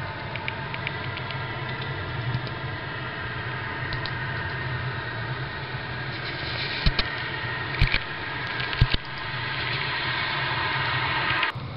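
Steady low rumbling drone with hiss, of unclear origin, like distant engine noise, broken by a few sharp clicks from fingers touching the camera microphone; it cuts off abruptly near the end.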